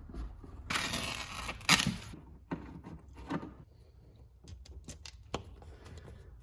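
Handling noise from fitting air-box intake parts: a short burst of scraping or rustling about a second in, a sharp knock just after it, then a few lighter clicks and knocks.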